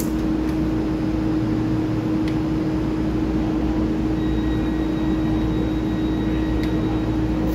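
Steady hum of a stationary EMU3000 electric multiple unit standing at an underground platform, with a constant low tone over a rumbling background and a few faint ticks.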